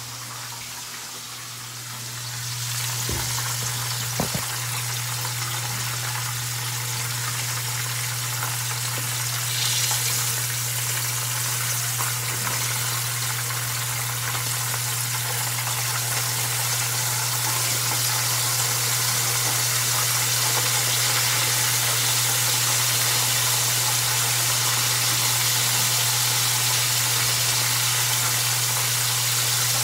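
Chicken frying in hot oil: a steady sizzling hiss that grows louder about two seconds in, over a constant low hum.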